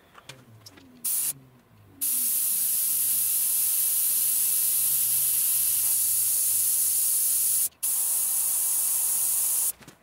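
Air hissing through the truck tire's valve stem: a short blast about a second in, then a steady hiss lasting nearly eight seconds, broken once briefly near the end.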